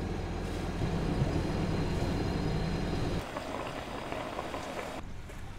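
Sailboat's inboard engine running with a steady low hum, which cuts off abruptly about three seconds in, leaving quieter outdoor background noise.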